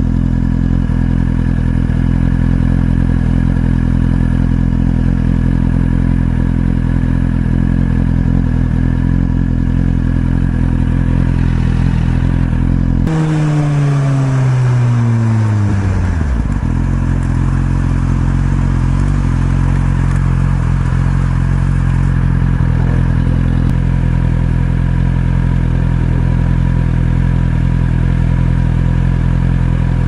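Suzuki GSX-R1000R's inline-four engine running steadily. About halfway through, the revs jump sharply and then fall away over about three seconds before the engine settles back to a steady note.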